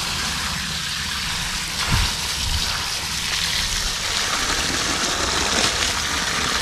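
Water from a borehole pump's outlet pipe pouring steadily into a drainage trench, a weak flow. There is a low thump about two seconds in.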